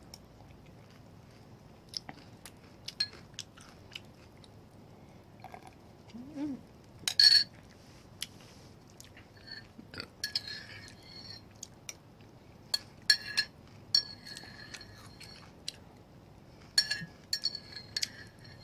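Close-up eating sounds: chewing and short clicks of cutlery against a dish, scattered through, with the sharpest clink about seven seconds in.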